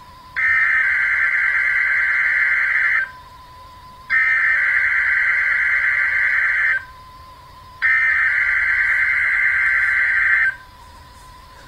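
Emergency Alert System SAME header: three identical bursts of warbling digital data tones, each about two and a half seconds long with about a second between them, encoding the start of a test tornado warning. A faint steady tone runs underneath.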